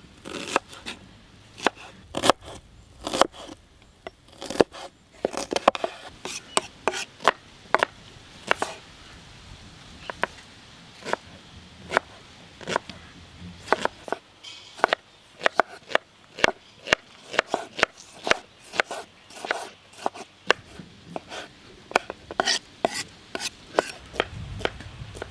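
Tramontina chef's knife finely chopping onions and tomatoes on a wooden cutting board: a run of sharp, irregular knocks of the blade on the wood, two or three a second.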